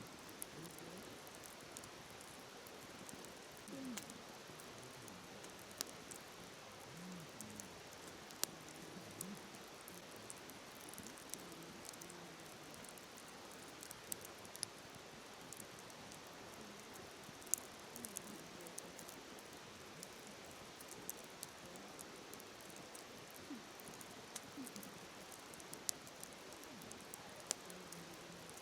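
Wood fire crackling, with irregular sharp pops and snaps, over the steady rushing hiss of a flowing river.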